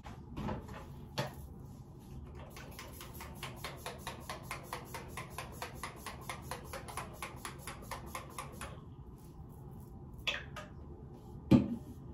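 Rapid, even clicking of small hard objects, about seven clicks a second, lasting several seconds and then stopping. Two knocks follow near the end, the second one sharp and loud, like something set down hard.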